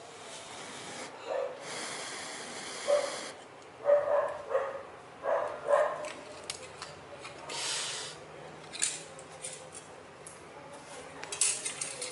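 Rustling and light clicking as thin aluminium can strips are handled. A few short pitched cries, the loudest sounds here, come between about one and six seconds in.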